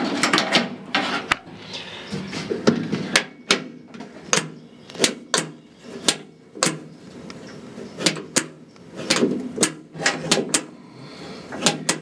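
A vehicle door's latch and lock mechanism being worked by hand: a string of sharp metallic clicks and clacks, one to three a second and some in quick pairs, with rubbing and handling noise in between.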